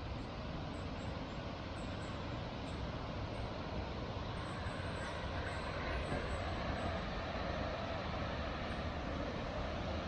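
Steady rushing roar of river rapids or a waterfall, growing slightly louder toward the end.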